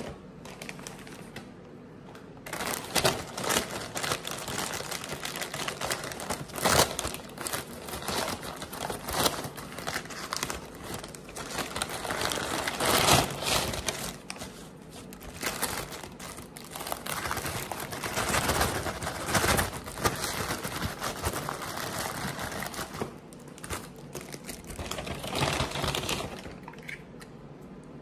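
Crinkling and rustling of a takeout food wrapper being handled and opened, with short sharp crackles throughout; it starts a couple of seconds in and stops about a second and a half before the end.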